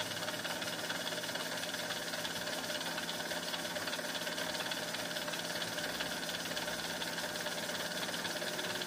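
Milling machine running with a steady, even hum.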